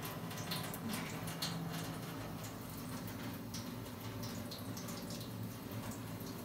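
Tap water running into a stainless steel sink, splashing and dripping irregularly as a glass microscope slide is rinsed under the stream.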